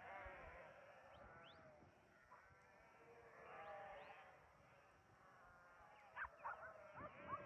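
Faint bleating of a large flock of sheep, many calls overlapping and coming in waves.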